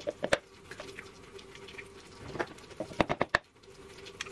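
Eggs being cracked into a plastic measuring jug: a few sharp taps and clicks of shell on the jug's rim, with a quick cluster of taps about three seconds in.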